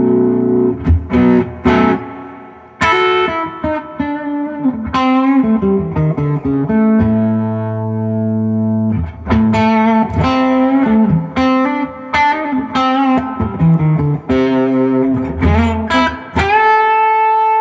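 Duesenberg Starplayer Special electric guitar on its bridge humbucker with the tone rolled back, played through a Fender '65 Reissue Deluxe Reverb: a mix of picked chords and single-note lines, with a low chord held in the middle and a long note left ringing near the end.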